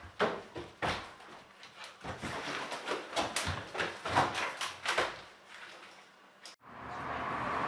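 Hurried footsteps and the handling of a wooden front door, a run of irregular knocks, clatters and rustles as it is opened. About six and a half seconds in, the sound cuts out briefly and gives way to a steady outdoor background hum.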